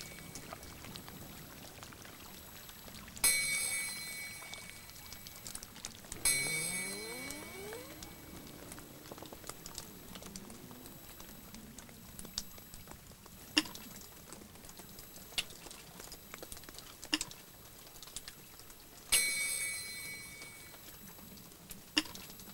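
Water dripping from melting icicles: sparse drops that land with a bright, ringing plink, three of them standing out, with a few short ticks of smaller drips in between.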